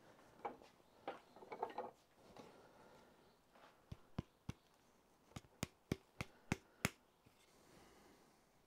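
Hand auger being turned back out of a bore in a green beech branch: short rasping strokes of wood rubbing on wood. Then about nine sharp wooden knocks over some three seconds as the bored branch section is tapped in the hands.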